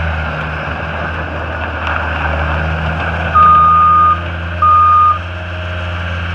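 John Deere 326D skid steer's diesel engine running steadily while its backup alarm sounds two beeps about a second apart, a little past the middle: the machine is being put in reverse.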